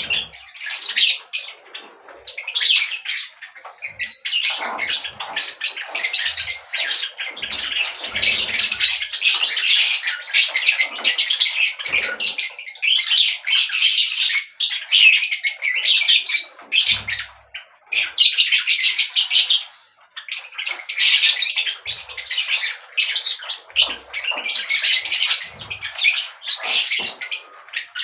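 Birds chirping and squawking in a dense, almost unbroken chatter of quick high calls, with a few brief lulls.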